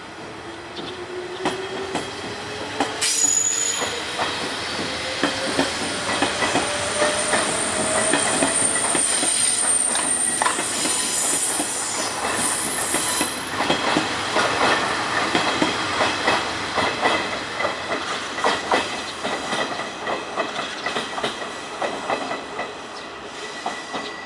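Hanshin 8000 series electric train running through a station. Over the first several seconds a motor whine climbs steadily in pitch, a thin high squeal comes in partway through, and then the wheels clatter over rail joints as the cars go by.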